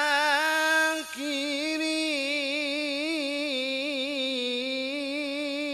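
A man's voice chanting Qur'anic recitation in melodic tajwid style (qiro'ah), drawing one phrase out into long held notes with wavering ornaments. There is a brief catch about a second in, then a single long ornamented line.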